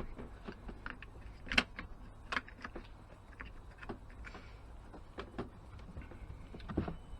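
Scattered light clicks and knocks of parts and tools being handled during work on a car, the sharpest about one and a half seconds in.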